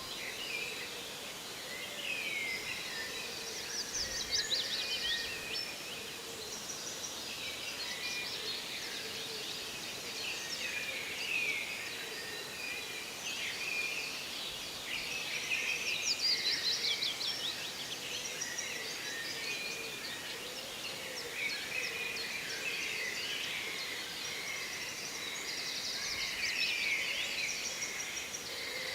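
Forest birdsong: several birds calling at once, with chirps, short sweeping whistles and fast high trills over a steady background hiss.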